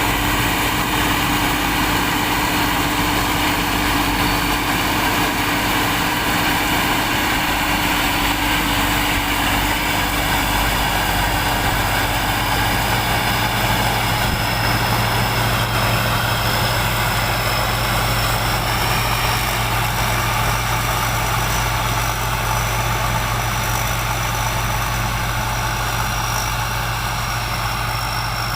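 Heavy vehicle engine running steadily, with a faint high whine that slowly rises in pitch and then holds.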